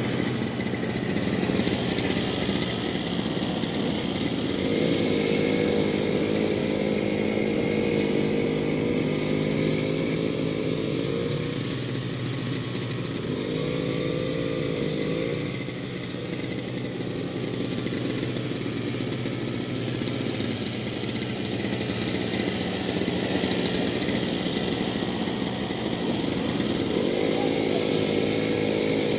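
Small gasoline engine running steadily; its pitch comes up strongly for several seconds about five seconds in, briefly around fourteen seconds, and again near the end.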